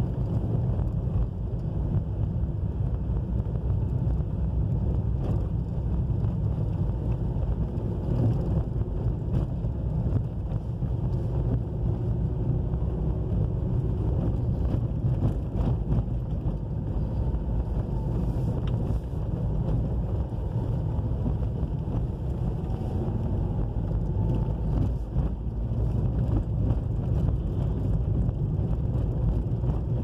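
A car driving on a dirt and gravel road: a steady low rumble of engine and tyres, with wind noise on the microphone.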